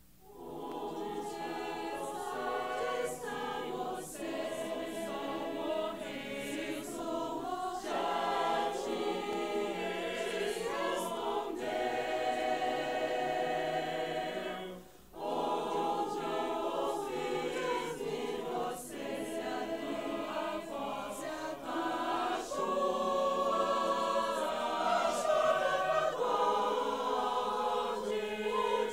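Mixed choir of men's and women's voices singing in harmony, with a short break about halfway through.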